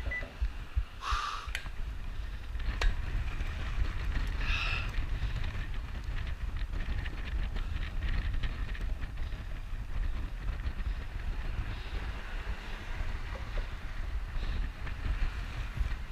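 Wind buffeting the microphone of a chest-mounted action camera, a dense low rumble with a few sharp clicks.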